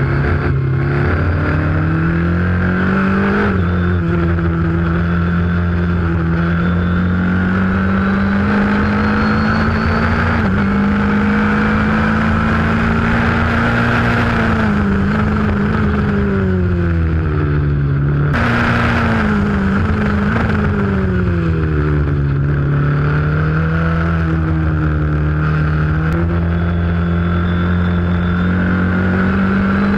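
Formula Ford race car's engine heard onboard, holding high revs that climb slowly, then drop twice as the car slows for corners before rising again, over a steady rush of wind and road noise.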